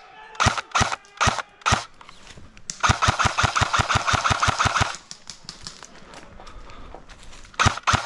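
Airsoft guns firing: a few single shots, then a rapid full-auto burst lasting about two seconds, then another quick run of shots near the end.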